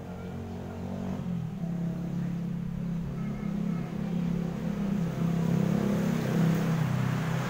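A motor vehicle's engine running, growing louder toward the end.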